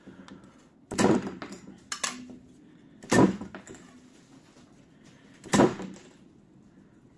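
Sharp metallic clacks from a homemade shear made of old circular saw blades snapping shut as it cuts pieces off an abrasive cutting disc. There are three loud clacks about a second in, about three seconds in and halfway through, with a smaller one about two seconds in.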